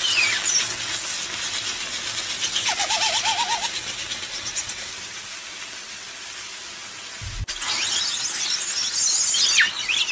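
Red-hot metal balls sizzling and hissing as they burn into the flesh of a cut watermelon, with high squeals of escaping steam, one wavering squeal about three seconds in. A brief thump about seven seconds in.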